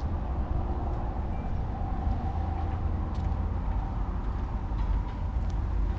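Steady low rumble of outdoor background noise, with a faint steady hum and a few light clicks.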